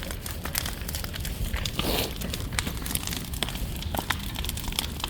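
Large bonfire burning, with many sharp crackles and pops over a low steady rumble, and a denser burst of crackling about two seconds in.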